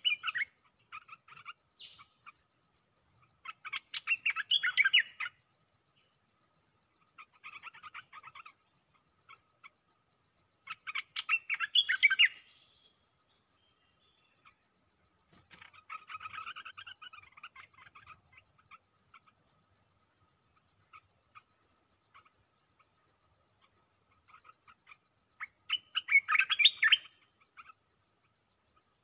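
Bulbuls singing in about six short bursts of rapid chattering, whistled song, the loudest a little after 4 s, around 12 s and near 27 s. This is a territorial exchange between a caged decoy bulbul and a wild bulbul drawn in to it. Under the song an insect keeps up a steady high, pulsing trill.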